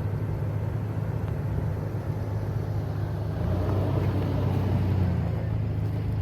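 Toyota pickup truck driving: a steady low engine and road hum that swells a little about four seconds in.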